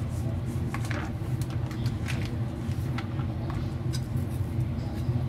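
A steady low hum, with light scattered clicks and rustles from gloved hands blotting a wet rice-paper wrapper with a cloth on a wooden cutting board.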